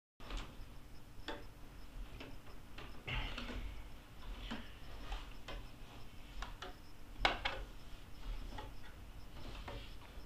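Irregular light clicks and knocks from a person moving about in a small room, over a low steady hum, with a brief louder rustle about three seconds in.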